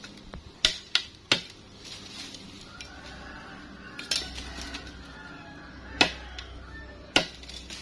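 Machete blade chopping at a thin bamboo stem, trimming it: about six sharp chops, three quick ones in the first second and a half, then three more spaced a second or two apart.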